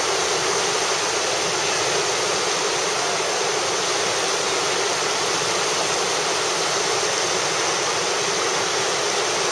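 Whitewater of a river rapid rushing steadily.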